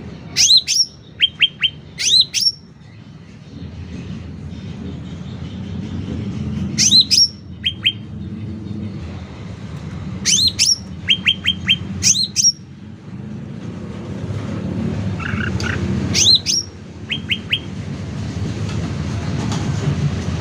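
Cucak ranting calling loudly in short phrases a few seconds apart. Each phrase is a sharp high note sliding down, then a quick run of about three shorter, lower notes. A low rumble underneath grows louder near the end.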